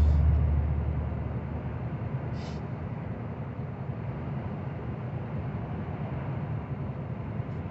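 Steady low engine and road drone inside a moving truck's cab at highway speed, a little louder for the first second.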